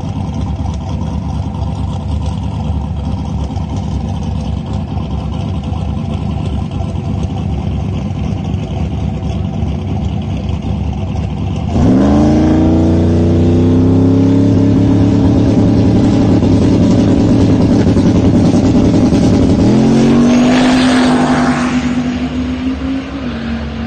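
Engine of a boosted SN95 Ford Mustang drag car idling steadily at the start line. About twelve seconds in it launches at full throttle, suddenly much louder with the pitch sweeping up. It holds high, climbs again about eight seconds later, then fades as the car goes down the track.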